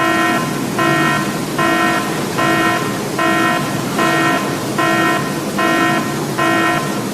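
Japanese railroad crossing warning bell ringing in an even, repeating clang, about one ring every 0.8 seconds, over a steady rushing noise.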